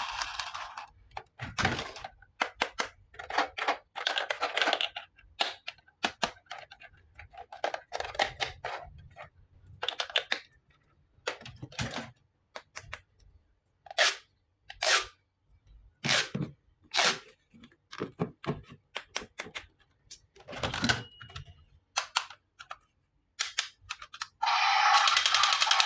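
Plastic toy pieces and packaging being handled: irregular sharp clicks and taps mixed with short rustling, crinkling bursts, with quiet pauses between.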